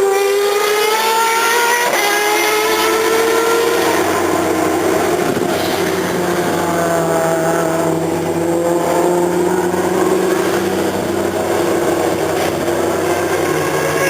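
Single-seater racing car engines at high revs: the pitch climbs, breaks for an upshift about two seconds in and climbs again, then settles into a steadier, lower drone.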